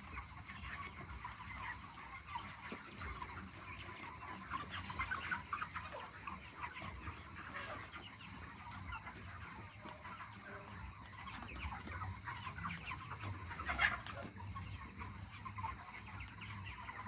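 A large flock of broiler chicks peeping, with many small overlapping calls, over a low steady hum. One louder, sharper sound stands out about fourteen seconds in.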